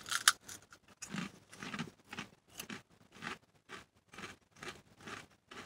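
A wavy potato chip being bitten, with a sharp crunch just after the start, then chewed with a steady series of crunches, about two a second.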